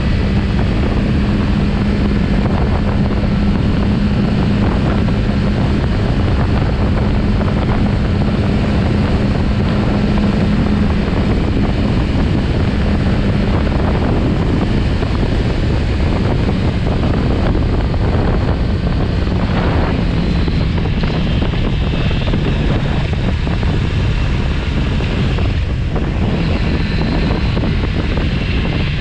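Kawasaki Z900RS Cafe's inline-four engine running at a steady cruising pitch under heavy wind rush on the microphone. The engine note drops lower about halfway through and shifts a few times near the end.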